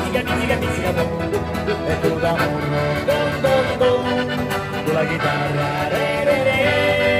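Accordion and acoustic guitar played together by a street duo: the accordion carries the melody over a strummed guitar accompaniment.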